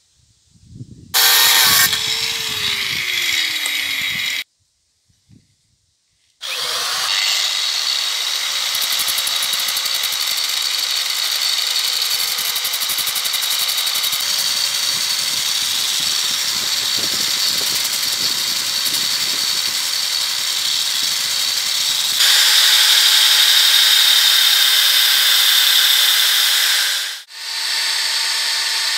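Electric drill spinning a wooden chisel handle while an abrasive is held against it, the handle turned like on a makeshift lathe: a steady motor hum with a hissing grind of wood. A short first run winds down in pitch. Then it runs continuously from about six seconds, gets louder around twenty-two seconds and breaks off briefly near the end.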